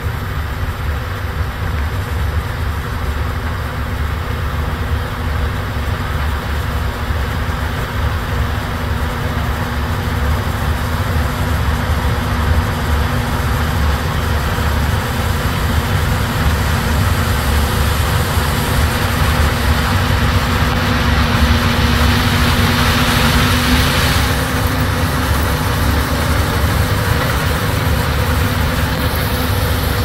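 Combine harvester and the tractor pulling the grain cart beside it running steadily with a heavy diesel rumble as the combine harvests corn and unloads grain. A louder rushing hiss swells about two-thirds of the way in and cuts off sharply.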